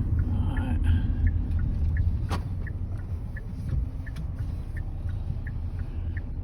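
Road rumble inside a moving car, with a turn-signal indicator ticking about three times a second. There is one sharper click about two seconds in.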